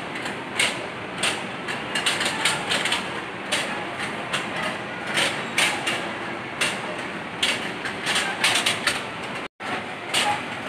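Indoor arcade din: a steady noisy background of game machines with frequent sharp clicks and clacks. The sound breaks off briefly near the end at an edit.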